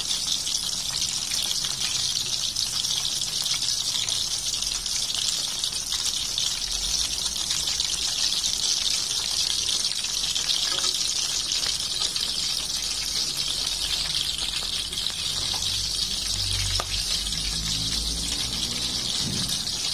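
Small battered fish deep-frying in hot oil in a wok, a steady sizzle; this is the second fry to make them crunchy. A low rumble joins in under the sizzle about a third of the way through.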